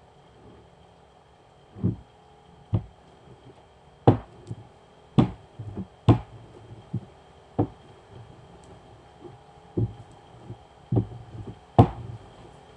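Wooden rolling pin rolling out dough on a floured board: a series of irregular dull knocks and thumps, about one a second, as the pin is pressed down and rolled back and forth.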